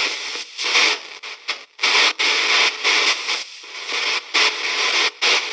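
VBE KC-Ghostbox app sweeping through its audio banks: radio-like static chopped into short fragments a few times a second, with brief gaps between them.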